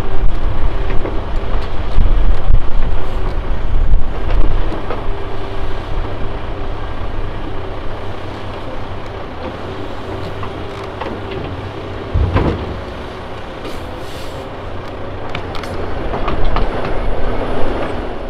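CAT 329D excavator's diesel engine and hydraulics working with a steady whine and heavy low rumble, strongest in the first few seconds, as it swings its log grapple. Scattered knocks of timber, and one heavy thump about twelve seconds in as tree trunks are dropped into the steel dump body of the truck.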